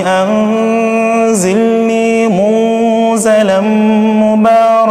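Male Qur'an reciter holding one long melodic vowel in tajwid recitation, the pitch steady with two brief ornamental dips and turns along the way.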